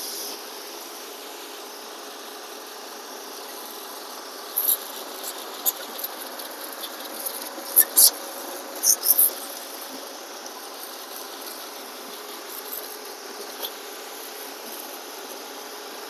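The diesel engine of a 4x4 self-loading concrete mixer runs steadily as the machine manoeuvres. For a few seconds in the middle, a series of short, sharp, high-pitched squeaks stands out above it.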